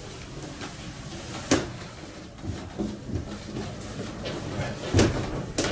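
Knocks and clunks of hand work on aluminium-framed wall panels: a sharp knock about a second and a half in, two more close together near the end, and smaller clicks between.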